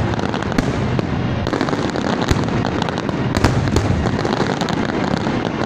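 Fireworks display: aerial shells bursting one after another in a dense, continuous crackle of bangs. A few louder reports stand out about half a second, two seconds and three and a half seconds in.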